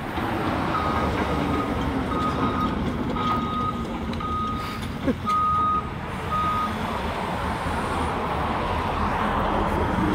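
Backup alarm on heavy construction machinery beeping about once a second for some six seconds, over the steady running of a diesel excavator's engine.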